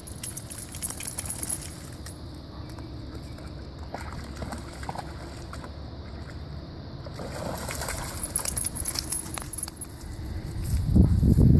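A dog wading and splashing through shallow creek water, its collar tags jingling as it moves. There is a loud low rumble near the end.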